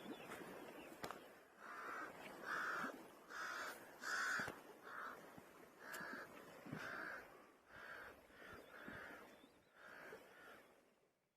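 A bird calling over and over: about a dozen short calls, each under half a second, spaced half a second to a second apart, over faint background noise.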